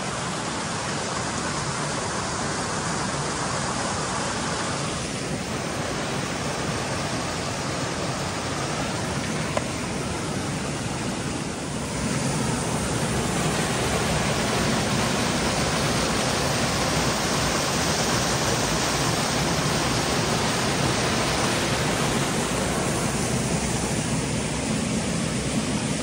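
River waterfall rushing and splashing down through a rocky gorge: a steady, loud noise of falling water that grows louder about twelve seconds in.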